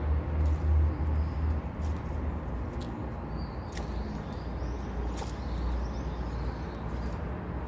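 Young ferret scratching and digging in the potting soil of a basil planter: soft scattered scrapes and ticks of soil, over a steady low hum.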